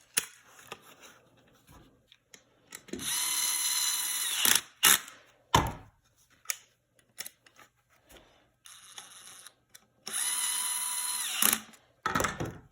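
DeWalt DCF601 12 V brushless screwdriver running twice for about a second and a half each time with a steady high whine. Its sharp clicks and knocks come after the runs, and a fainter, shorter run comes between them.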